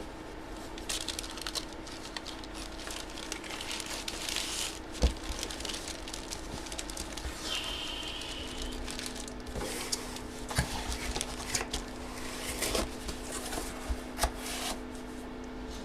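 Rustling and crinkling of plastic sleeves and card packaging being handled, with scattered light clicks and taps throughout.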